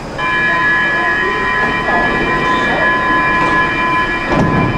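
Stockholm metro train running, with a steady high-pitched squeal of several fixed tones setting in just after the start over the rumbling of the car. A low thump comes about four and a half seconds in.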